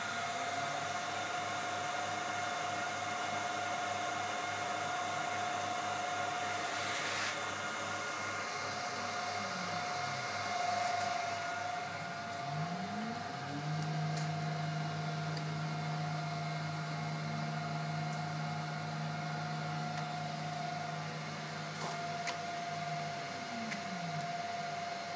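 Nema 23 stepper motors on a CNC-converted Titan TM20LV mill driving the axes back to zero. Each move is a whine that rises in pitch as the motors speed up, holds, then falls as they slow to a stop. There are two moves: one ending about ten seconds in, the other running from about twelve to twenty-four seconds in. A steady high hum runs underneath.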